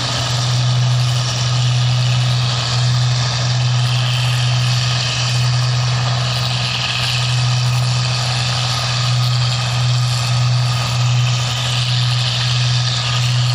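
Engine of a rice paddy machine running steadily: a constant low drone with an even hissing wash of machinery noise over it.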